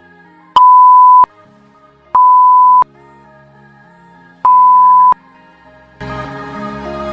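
Three loud electronic beeps, each a single steady pitch lasting under a second, spaced about one and a half to two and a half seconds apart, over faint background music that grows louder near the end.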